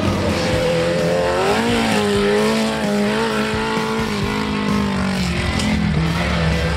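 Competition off-road jeep engine revving. The pitch climbs about one and a half seconds in, holds high, then drops back near the end.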